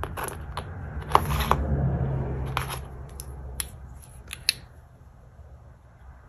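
Small plastic bags being handled: scattered crinkles and light clicks, thinning out toward the end.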